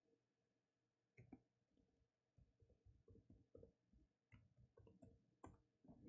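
Near silence: quiet room tone with a scattering of faint, short clicks and taps.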